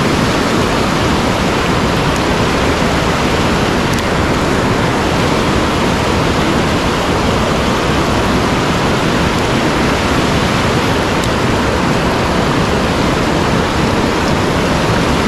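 Fast-flowing headwater mountain stream: a steady, loud rush of water.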